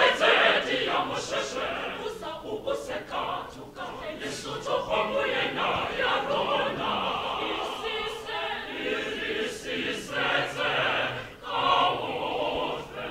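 Mixed choir of women's and men's voices singing together.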